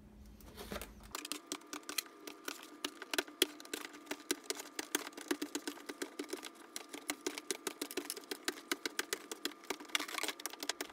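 Tin snips cutting a circle out of a plastic trash can lid: a rapid, irregular run of short snipping clicks, starting about a second in.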